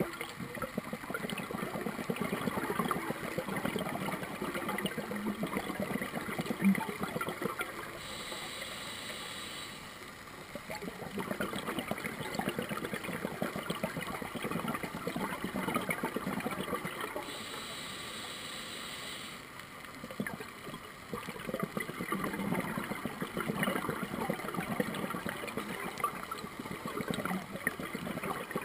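Scuba diver's breathing through an open-circuit regulator underwater: three long bubbling exhalations, each several seconds of crackling bubbles, broken twice by a shorter, quieter inhalation with a steady hiss.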